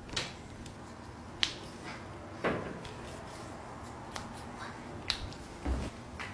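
A string of short, sharp pops and clicks, several over a few seconds, the loudest about a second and a half in: joints cracking during a chiropractic adjustment.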